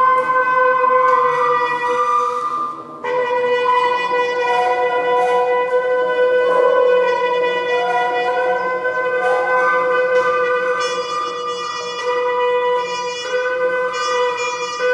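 Hechtyphon and microtone duplex, two multi-belled brass instruments, playing long held notes together. They form a dense, sustained chord, with a short dip about three seconds in before new held notes take over.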